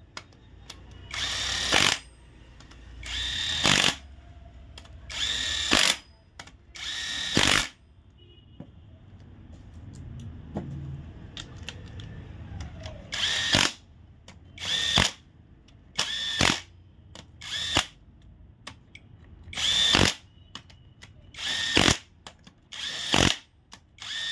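Cordless drill with a socket running bolts down into an engine's cylinder head: about eleven short spin-ups, each whine building as the bolt seats, with a pause of several seconds partway through.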